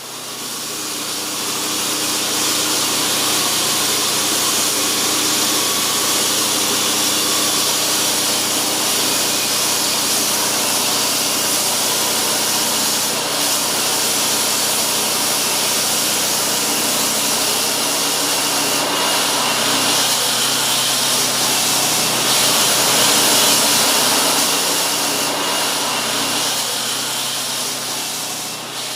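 A loud, steady, hissing machine noise runs throughout, like a motor-driven tool or engine working without a break.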